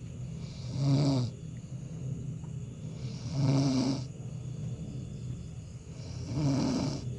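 A man snoring in his sleep: three loud rasping snores, about three seconds apart.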